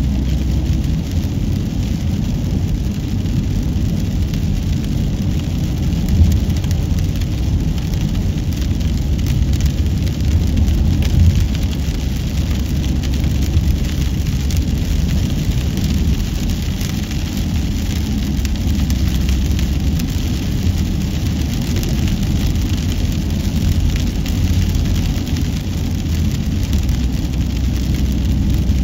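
Steady low rumble of tyres and engine as a car drives along the highway, with a couple of small bumps about 6 and 11 seconds in.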